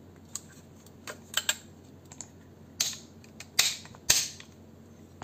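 Irregular sharp clicks and snaps, about nine in all, from a VFC HK416 airsoft electric rifle's trigger and mechanism being worked. The loudest come about three and four seconds in.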